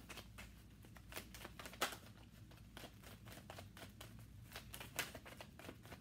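A deck of tarot cards being shuffled by hand, a quick run of faint soft card clicks and flicks, with a louder snap just under two seconds in and another about five seconds in.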